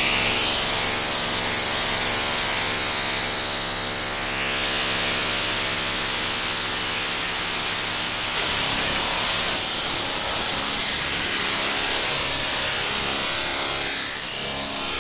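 Eerie sound-design soundtrack: heavy static hiss over a steady droning hum, with a sweep rising through the hiss about five seconds in. It jumps abruptly louder a little past eight seconds.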